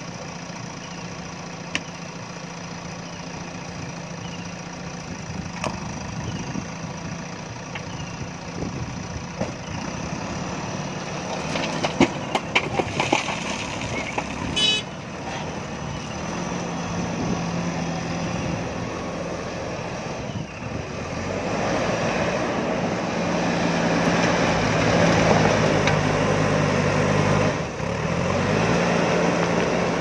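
JCB 3DX backhoe loader's diesel engine running steadily, with gravel tipped from the raised front bucket clattering into the dump truck's steel bed a little before halfway, and a brief toot just after. In the second half the engine runs harder and louder.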